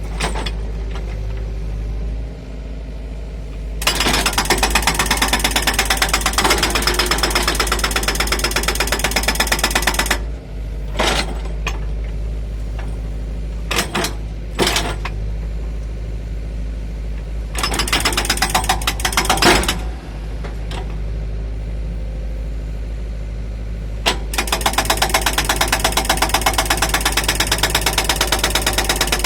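Hydraulic breaker hammer on a Doosan DX55w wheeled excavator pounding very hard ground in several long runs of rapid, even blows. Between the runs the excavator's diesel engine keeps running steadily.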